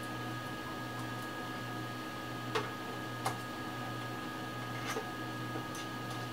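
A few short, sharp metallic clicks and taps from a screwdriver working the screws of a power supply's metal case during reassembly, over a steady electrical hum.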